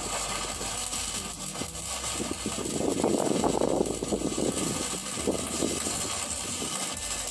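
An engine running steadily, with a louder stretch about three seconds in.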